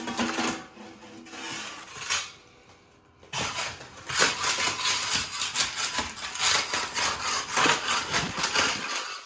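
Irregular clinking, knocking and scraping, like hand tools at work, with a short lull about two to three seconds in.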